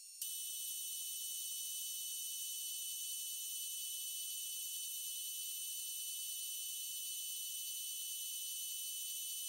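Metal lathe switching on just after the start and running at a steady speed with a constant high-pitched whine.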